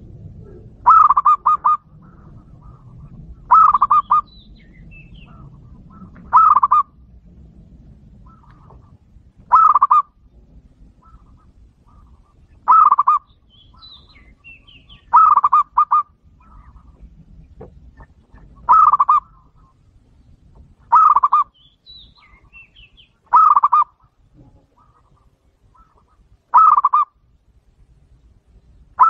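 Zebra dove (local perkutut) singing: a short phrase of quick staccato coos, repeated about ten times at intervals of two to three seconds. Faint higher chirps sound between the phrases.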